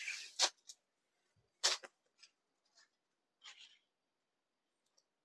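Brief rustles of a printed saree's fabric being flipped open and spread out by hand: a swish at the start, a sharper snap of cloth about one and a half seconds in, and a softer swish past the middle.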